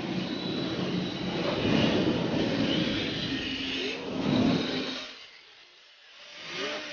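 1/10-scale D-Like Re-R Hybrid RC drift cars running: a steady motor whine that rises and falls with the throttle. It fades out about five seconds in.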